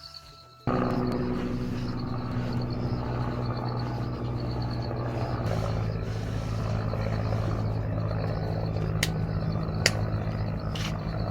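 Steady mechanical drone with a low hum over a hiss, cutting in suddenly about a second in; the hum drops to a deeper pitch about halfway through.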